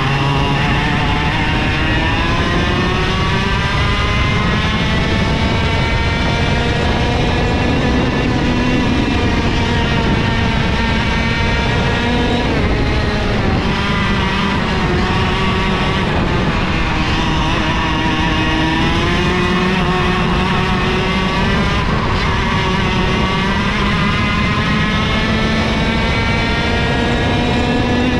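IAME KA100 two-stroke kart engine at racing speed, heard onboard. Its pitch climbs steadily on each straight and drops quickly as the driver lifts for a corner, four or five times in a row.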